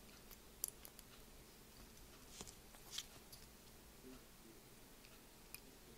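Near silence with a few faint, sharp clicks as ceramic disc capacitors' wire leads are pushed into a printed circuit board and bent over.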